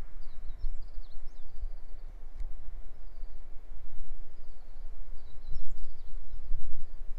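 Wind buffeting the microphone as a gusting low rumble, with faint high chirps of small birds about a second in and again near the end.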